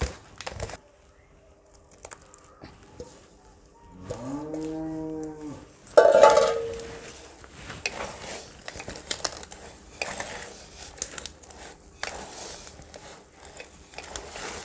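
A cow moos about four seconds in, a drawn-out call that rises and falls in pitch, followed at once by a second, louder call. Between and after the calls, soft irregular squishing of hands kneading wet spinach-and-flour dough in a steel bowl.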